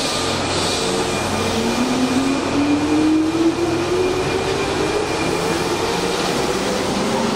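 Keihan 8000 series electric train pulling away from an underground platform. Its traction motors start a whine about a second and a half in that climbs steadily in pitch as the train gathers speed, over the steady rumble of the moving cars.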